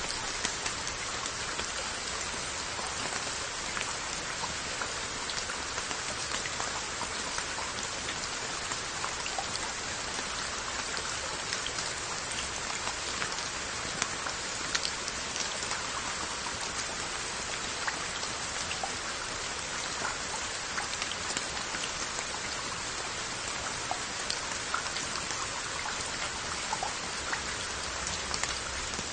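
Steady rain falling on glazed Korean earthenware onggi jars and their lids, a constant hiss with scattered sharp drop taps on the pottery.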